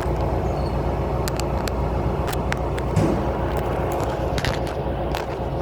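A vehicle engine running steadily, a low rumble, with scattered faint clicks.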